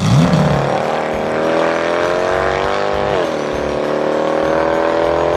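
Engine sound effect of a cartoon vehicle driving off, its pitch rising slowly, dipping briefly about three seconds in as if shifting gear, then holding steady.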